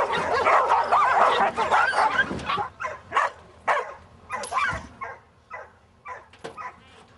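Several dogs caged in a pickup truck's bed barking and yelping over one another. After about two and a half seconds the din thins to single barks that grow fainter toward the end.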